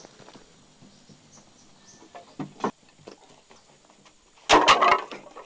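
Bundles of wooden sticks dropped onto a packed dirt floor: a few faint knocks, then a short loud clatter of several wooden impacts about four and a half seconds in.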